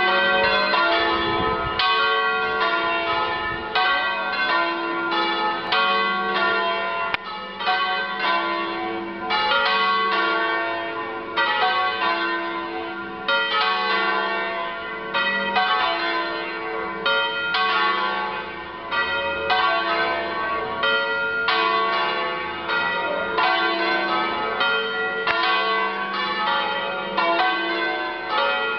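Several church bells swinging in a bell tower and ringing together in a continuous peal, strike after strike of different pitches overlapping and ringing on.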